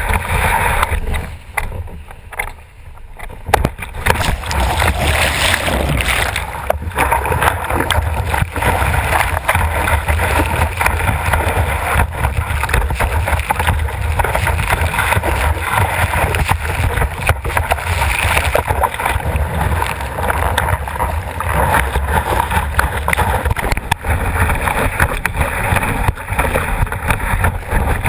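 Water rushing and splashing against a kiteboard as it planes, mixed with wind buffeting the camera mounted on the board. The noise drops briefly about two seconds in, then stays loud and dense.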